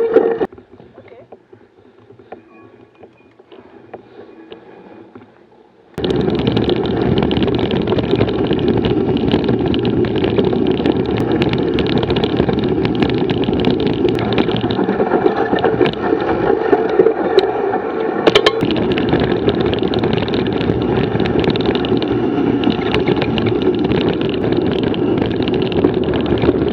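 Mountain bike ridden along a dirt trail, heard through a helmet-mounted action camera: wind buffets the microphone and the bike rattles and clicks over the ground in a loud, steady rush. It starts abruptly about six seconds in, after a few seconds of faint sound with light ticks.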